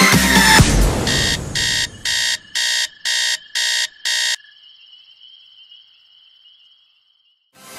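Smartphone alarm beeping in a repeated pattern, about two beeps a second, stopping abruptly as it is switched off. A faint, steady high tone follows.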